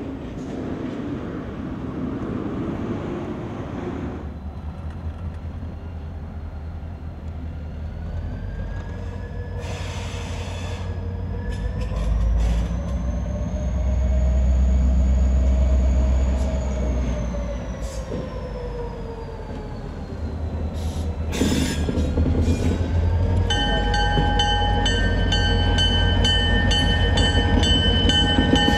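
A freight car rolling by on the rails, then a Vermont Railway diesel locomotive approaching and passing close, its engine drone swelling and easing off, with a few sharp clanks from the wheels and couplers. About three-quarters of the way through, the locomotive's bell starts ringing with steady repeated strokes.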